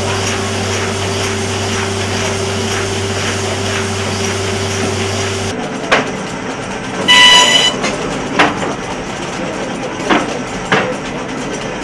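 A steady machine hum with a low drone runs through the first half. After a sudden change, a book-binding machine clamping and carrying a block of pages clacks with a few sharp knocks, and a loud buzzer-like tone sounds briefly about seven seconds in.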